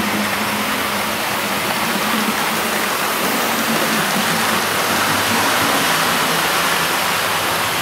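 00 gauge model train passing: a silver streamlined LNER A4 locomotive hauling silver coaches, its wheels rolling on the rails and its motor humming as a steady rushing rumble. It is slightly louder about five to six seconds in as the train runs closest.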